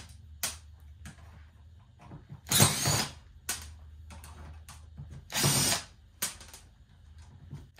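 Cordless drill spinning in short bursts as it backs screws out of a sheet-metal door liner panel, the two longest runs a few seconds apart with brief blips between.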